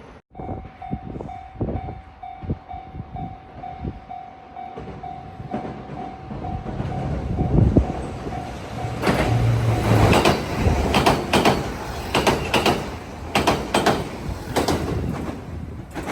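Japanese level-crossing warning bell ringing in a fast, even repeating tone, then a train passing over the crossing, its wheels clacking loudly over the rail joints and drowning out the bell from about halfway through.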